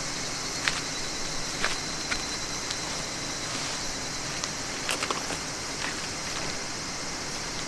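A steady, high-pitched chorus of insects chirring, with a few light clicks and knocks as a person settles into a folding camp chair.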